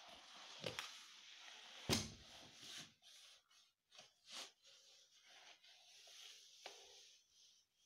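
Faint rustling and a few short knocks of high-heeled suede boots shifting and tapping on a tiled floor, the loudest knock about two seconds in.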